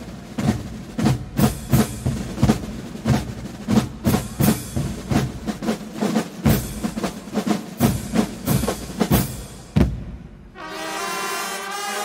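Carnival Guggenmusik band: drums beating a steady rhythm of loud strokes, about three a second. About ten seconds in the drums stop and brass instruments come in, holding a chord.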